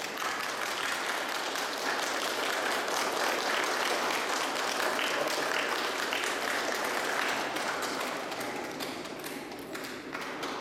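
Wedding guests applauding: many hands clapping densely together, then thinning and fading over the last few seconds.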